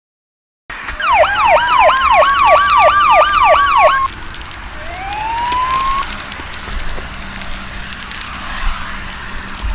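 Emergency-vehicle siren sound effects start suddenly about a second in: a fast yelp sweeping up and down about three times a second over a slowly rising wail, cutting off about four seconds in. A second short rising wail follows, then a crackling hiss with scattered clicks.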